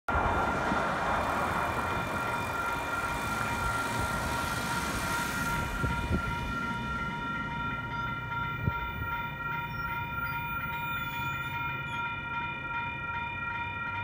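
Railroad grade-crossing warning bell ringing steadily at one unchanging pitch while the crossing is activated for an approaching train. A broad rushing noise in the first several seconds fades away.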